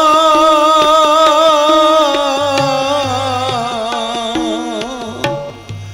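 Sikh kirtan: a man's voice holds a long sung note with vibrato over harmonium, fading gradually toward the end. Steady hand-drum strokes keep the rhythm underneath, and deep bass drum tones come in about halfway.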